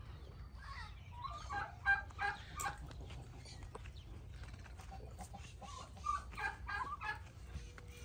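Farmyard poultry clucking and calling in short chirpy notes, a flurry about a second in and another about two-thirds of the way through.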